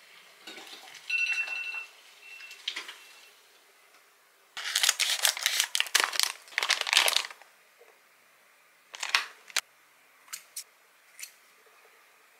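Plastic fish-cake packaging crinkling loudly for a few seconds as it is cut open with scissors and handled, after some softer rustling. A few short sharp clicks follow near the end.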